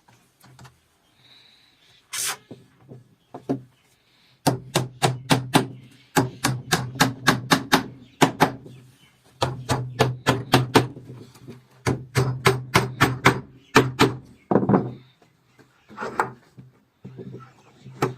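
A hand tool working wood with quick repeated strokes, about five or six a second, in bursts of a couple of seconds with short pauses, after a few scattered knocks.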